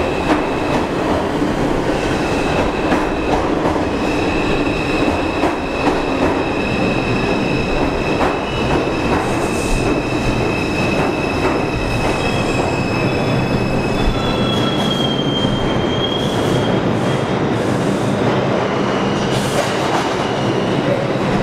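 A 2 train of R142 subway cars rolling into an underground station and slowing to a stop: steady rumbling and clatter of the wheels with a high, steady squeal from the wheels and brakes, one squeal note shifting about two thirds of the way in.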